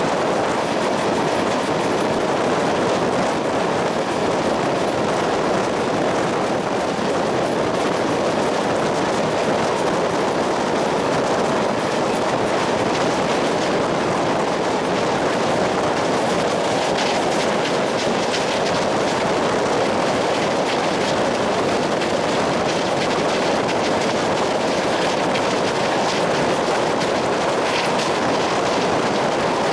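A train running along the track: a steady rumble of wheels on rails, with a few light clicks past the middle.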